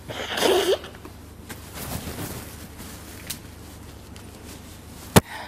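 A man's short, breathy vocal breath with a wavering pitch at the start, then a low steady hum with a few faint ticks. A single sharp click about five seconds in is the loudest sound.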